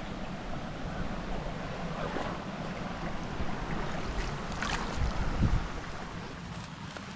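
Steady rush of creek water and waterfalls, with low wind rumble on the microphone. A few knocks and a loud low thump come about five seconds in.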